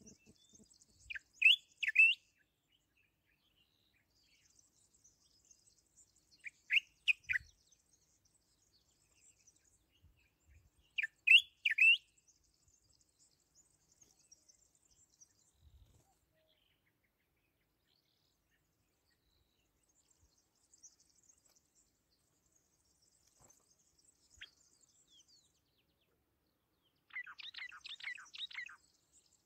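A songbird singing three short, loud phrases of about a second each, spaced about five seconds apart, each built of quick rising notes. Near the end comes a fainter, scratchy run of rapid notes, with faint high twittering between the phrases.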